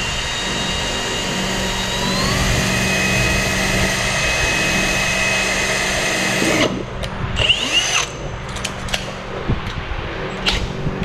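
Cordless drill boring a hole through the black trim piece that holds the bumper's grille mesh: a steady whine that climbs in pitch about two seconds in, then cuts off suddenly about two-thirds of the way through. About a second later the drill spins up briefly once more, followed by a few sharp clicks.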